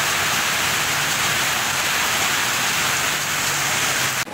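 Heavy downpour: a steady, even hiss of rain falling onto a flooded street, with floodwater rushing along it. The sound breaks off suddenly at the very end.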